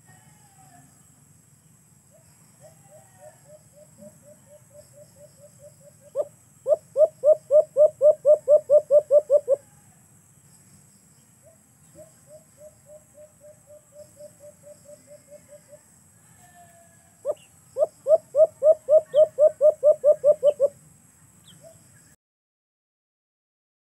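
Caged alimokon dove cooing: two bouts of rapid repeated coos, about four a second, each starting soft and then turning loud.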